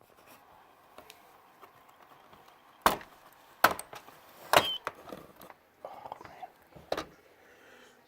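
Sharp clicks and knocks of hard plastic as the laptop's case is handled, four of them a second or so apart, with some rustling between.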